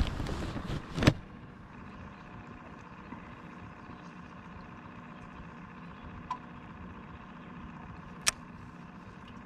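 Handling noise as the camera is gripped and moved: about a second of rustling, ending in a sharp click. After that comes a steady faint hum, with a small tick and then a sharp click near the end.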